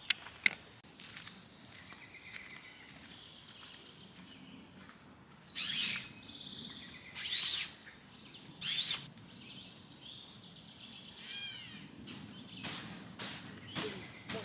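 Birds calling: three loud, high, arched calls about a second and a half apart, then a quick trill a couple of seconds later, over a faint outdoor background.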